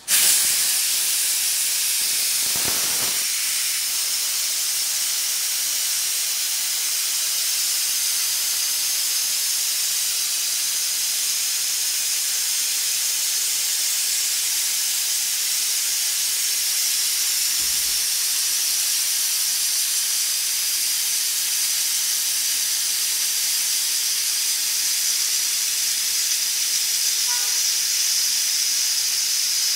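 Pressure cooker venting steam in a loud, steady hiss that starts abruptly, its weight valve held up by a wooden ladle handle to let the pressure out. A higher whistling edge grows stronger in the second half.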